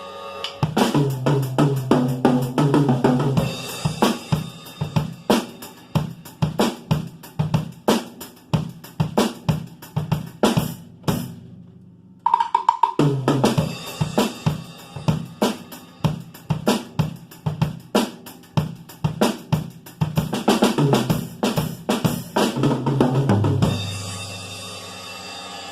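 Drum kit being played: a tom fill opens into a steady groove of kick, snare, hi-hat and cymbals. The playing breaks off briefly a little before halfway, resumes, and closes with another fill, leaving a low ringing as it stops.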